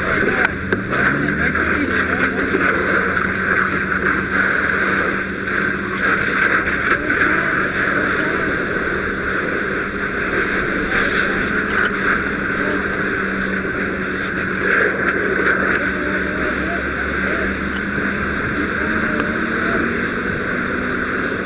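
Fire hose nozzle spraying a water-and-foam stream onto a burning pickup truck, a steady loud hiss, over the steady drone of a fire engine's pump engine; about a second in, a rising tone as the engine revs up.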